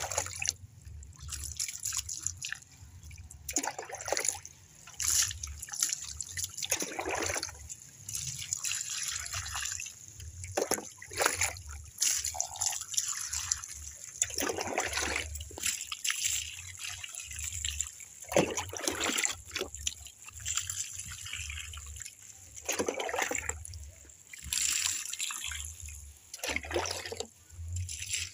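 Water poured from a metal basin over a wet dog, splashing and trickling off its coat onto the chair in a long run of uneven pours and drips.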